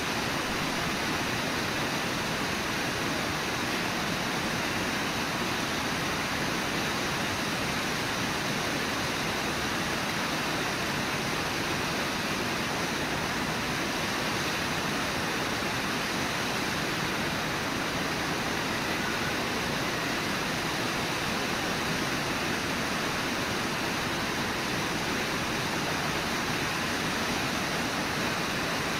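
Steady rush of flowing river water, an even hiss that does not change.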